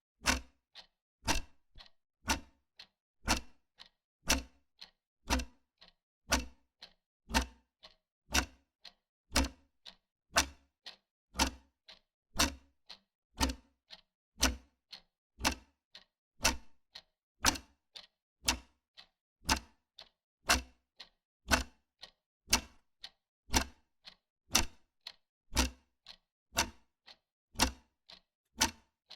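Wall clock ticking at a steady, even pace, about one loud tick a second with fainter ticks in between.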